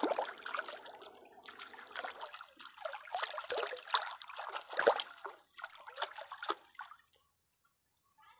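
Shallow stream water splashing and sloshing, churned by a person wading and working his hands in it. The splashes come in irregular bursts and die away about seven seconds in.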